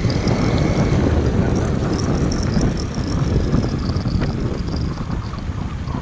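Wind buffeting the microphone on a moving motorcycle, over a steady rumble of engine and road noise.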